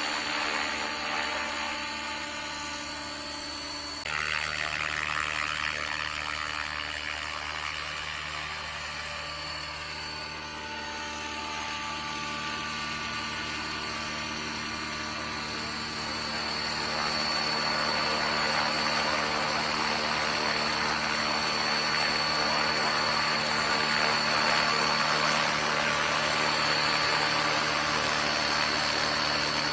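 600-size scale RC helicopter in low hover and landing, its rotor and motor running steadily with a high whine. It steps up in loudness about four seconds in and again about halfway through.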